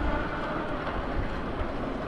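Street traffic: a steady low rumble of vehicles, with one engine's hum fading away just after the start.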